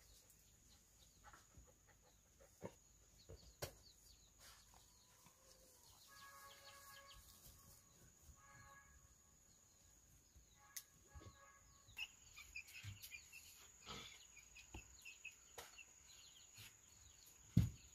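Faint farmyard sounds: a chicken calling three times in short pitched phrases, then small high chirps from birds or chicks in the second half. Scattered light knocks and a faint steady high whine run underneath, with a loud low thump near the end.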